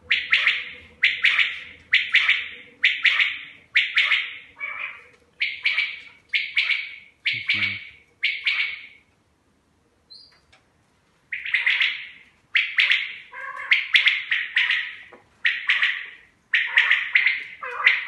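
Caged common quail (bedana) singing, a sharp repeated call about once a second with a short pause near the middle.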